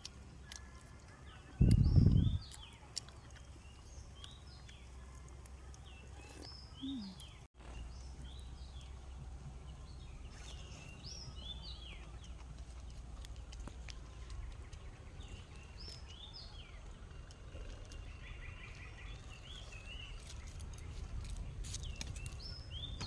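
Small birds chirping repeatedly over a steady low outdoor rumble, with a brief loud low thump about two seconds in.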